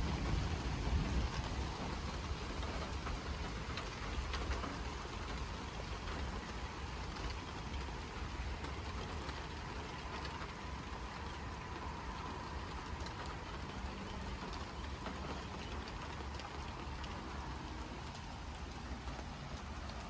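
Steady rain falling, with a low rumble of strong wind underneath.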